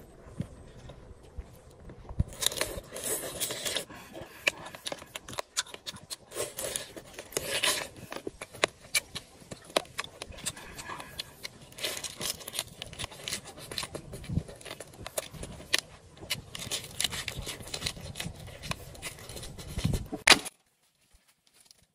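Close-up eating sounds: crisp lettuce leaves and fried pork belly being bitten and chewed, with crunching, crackling and the rustle and tearing of leaves. The sound stops suddenly near the end.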